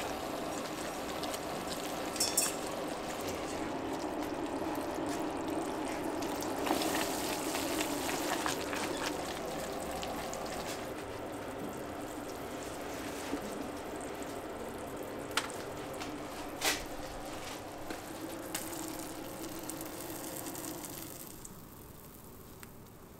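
Sugar syrup for hard candy boiling in a pot: a steady bubbling hiss with a few sharp clicks, dying away near the end.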